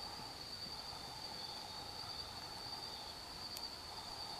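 Night insects, crickets or similar, calling in a steady high-pitched chorus, with fainter broken chirping just below it.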